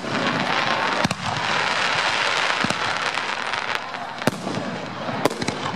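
Aerial firework shells bursting: about five sharp bangs at irregular intervals over a continuous background of crowd voices.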